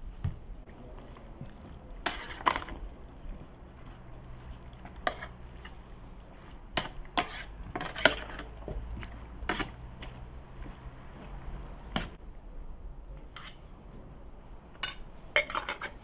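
Metal spoon clinking and knocking against a metal baking tray as meat pieces are turned and arranged, in scattered sharp clinks that bunch together in the middle and again near the end, over a low steady hum.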